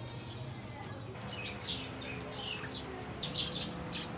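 Small birds chirping: a quick series of short, high chirps that begins a little over a second in and goes on in clusters.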